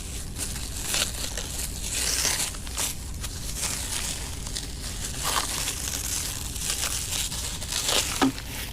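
Plastic packaging crinkling and crackling as it is handled and unwrapped, with irregular short crackles throughout.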